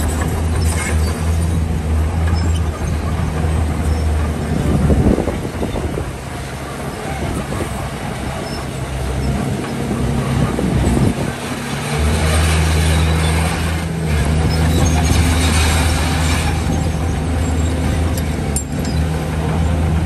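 Heavy diesel earthmoving machines (bulldozer and dump trucks) running: a steady low engine drone that weakens for several seconds midway and comes back strongly about twelve seconds in. A short loud noisy burst comes about five seconds in, and a longer stretch of noisy clatter comes after the engine returns.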